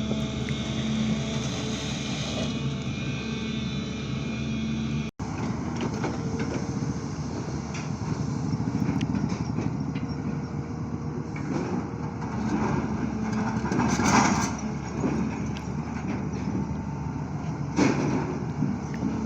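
Sany excavator's diesel engine running steadily while digging, with louder bursts about two-thirds of the way in and again near the end. It cuts out for a moment about a quarter of the way in.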